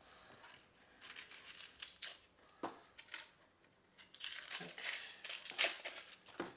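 Dry, papery onion skin crackling and tearing as it is peeled off with a kitchen knife, in short scratchy strokes with brief pauses between them.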